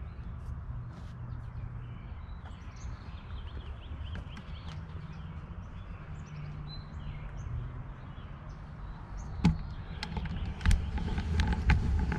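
Outdoor ambience: a steady low rumble with small birds chirping faintly, and a few sharp knocks in the last few seconds.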